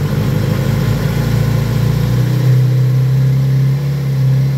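Kawasaki Z900RS's 948 cc inline-four idling just after a cold start on fresh oil, with the oil still working its way round the engine and filter. The idle steadies about two seconds in.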